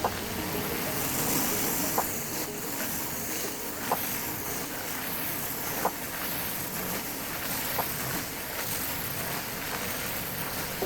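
Pressure washer spraying water onto concrete: a steady rushing hiss. A short sharp tick sounds about every two seconds.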